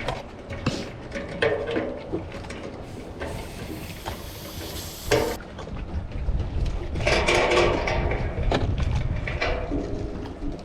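Irregular knocks and clatter of hard objects, with a stretch of hiss that cuts off suddenly about five seconds in and a busier burst of clatter a couple of seconds later.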